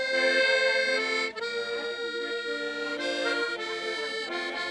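Piano accordion playing a tune in held chords that change every second or so, with a brief break about a second in.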